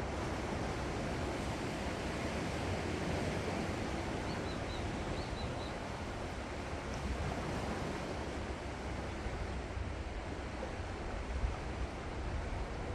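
Sea waves washing on the shore, a steady rushing surf, with wind buffeting the microphone now and then toward the end. A few faint, short high chirps come about four to six seconds in.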